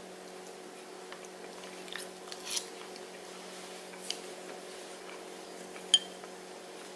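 Quiet chewing of a crunchy cornmeal-fried green tomato slice, with a few soft clicks and a short rustle a little after two seconds, over a steady low hum. One sharp click with a brief ring about six seconds in is the loudest sound.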